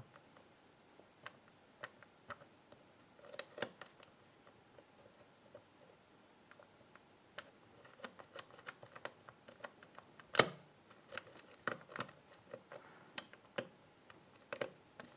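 Steel lock pick clicking and scraping against the pins inside a pin-tumbler lock fitted with serrated and spool security pins, under light to medium turning tension: scattered faint irregular clicks as pins are lifted and set, growing busier later on, with one sharper, louder click about ten seconds in.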